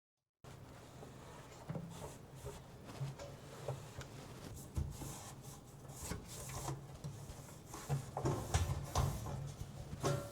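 Household cleaning work by hand: scattered light knocks, clicks and rubbing as kitchen parts are handled and wiped, over a low steady hum.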